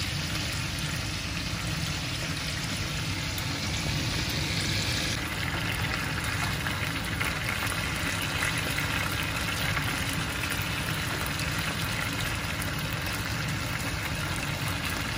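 Honey-glazed chicken drumsticks and thighs sizzling steadily in a square ridged grill pan. The higher hiss of the sizzle eases a little about five seconds in.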